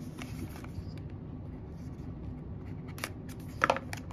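Cardboard knife box being handled and opened: quiet handling, then a few sharp clicks and taps from about three seconds in as the lid is worked off.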